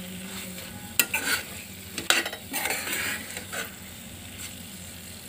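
A metal spatula stirring chicken chilli in a kadai over the heat, the sauce sizzling. It clacks sharply against the pan about one second and two seconds in, with smaller scrapes between, then the stirring eases and a steady, quieter sizzle remains.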